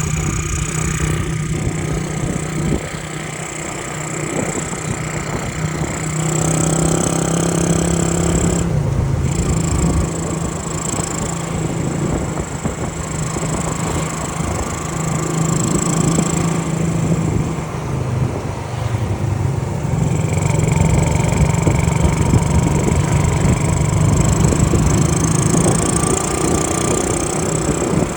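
Honda C70 step-through motorcycle's small single-cylinder four-stroke engine running on the move, its note shifting up and down as the speed changes.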